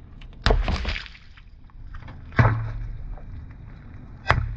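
Water balloons bursting one after another under a slowly rolling car tyre: three sharp pops about two seconds apart, each followed by a short splash of liquid onto the asphalt.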